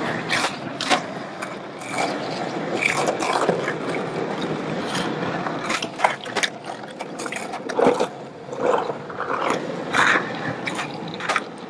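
Skateboard wheels rolling over rough concrete, with several sharp clacks of the board popping and landing. About halfway through, the board scrapes along a concrete ledge in a grind.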